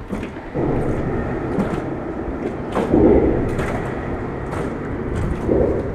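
Steady low rumble of traffic crossing the road bridge overhead, heard from beneath the deck, swelling about half a second in, again around three seconds and near the end.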